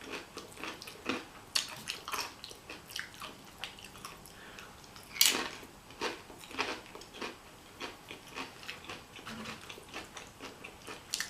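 Close-up mukbang chewing of a burrito bowl: irregular wet mouth clicks and smacks, with one louder snap about five seconds in.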